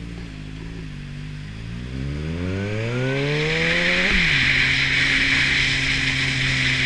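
Motorcycle engine accelerating, its pitch climbing for a couple of seconds, then dropping sharply at an upshift about four seconds in and holding steady. A rushing noise builds as the speed rises.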